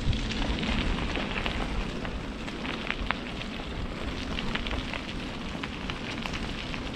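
Steady rain falling, with scattered sharp ticks of single drops hitting.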